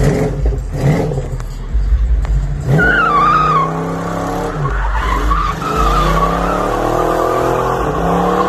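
Car engine revving hard, then the rear tyres squealing in a long, wavering squeal from about three seconds in as the car does a smoky burnout.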